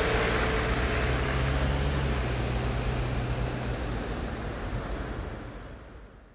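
Jeep Wrangler driving away: a steady low engine hum over road noise. The hum drops away about four seconds in and the sound fades out near the end.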